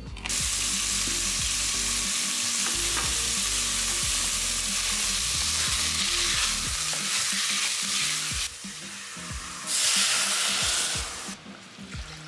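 Diced beef sizzling in hot olive oil in a stainless-steel pot as it is stirred with a wooden spoon. The loud sizzle starts suddenly as the meat goes in and dies down near the end.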